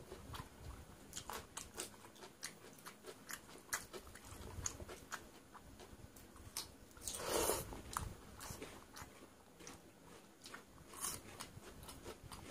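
Close-up eating sounds: a person chewing and crunching a mouthful of soaked rice and fried lentil fritters, with many short mouth clicks and one louder noise about seven seconds in.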